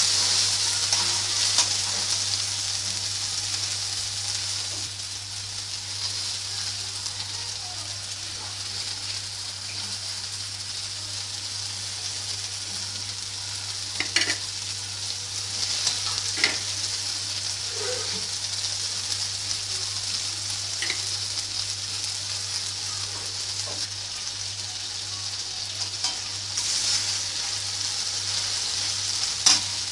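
Onions and tomatoes sizzling steadily as they fry in oil in a karahi, stirred with a metal spatula, with a few sharp clicks of the spatula against the pan.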